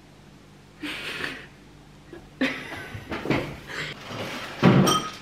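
Dinner-table clatter: short scraping and rustling handling sounds, then a ringing clink of cutlery or a serving utensil against a ceramic plate or dish near the end.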